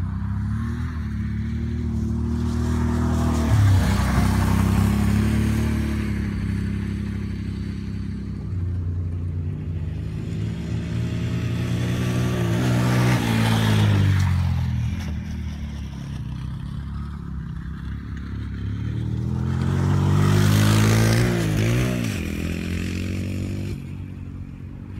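Quad ATV engines revving as riders pass close by three times, each swelling in loudness with the pitch falling as the machine goes past.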